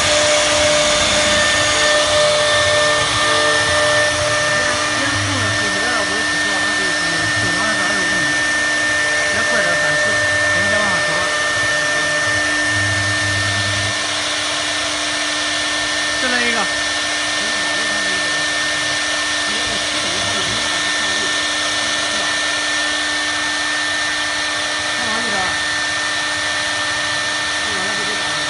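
CNC wood router's spindle running with a steady high whine over a hiss as the bit cuts shapes out of a fibreboard sheet.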